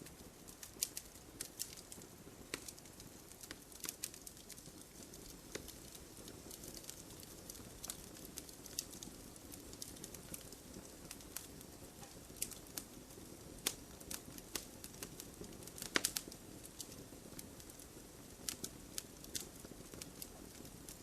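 Campfire burning: burning wood crackling and popping in irregular sharp snaps over a low steady hiss of the flames, with a louder cluster of pops about sixteen seconds in.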